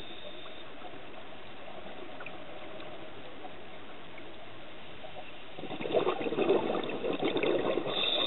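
Steady underwater hiss, then from about halfway through a scuba diver's exhaled bubbles burbling from the regulator for about two and a half seconds.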